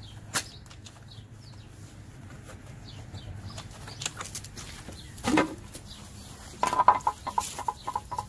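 Plastic clicks and knocks from a pool pump's strainer lid being opened by hand, with a louder knock about five seconds in and a quick rattling run of clicks near the end.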